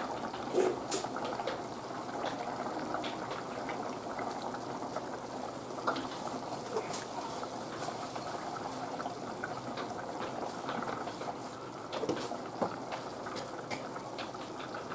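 Curry gravy at a rolling boil in a metal kadai: steady bubbling with frequent small pops.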